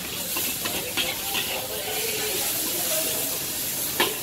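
Flat rice noodles sizzling and hissing in a hot wok over high heat, with a metal spatula scraping and knocking against the wok, sharply about a second in and near the end.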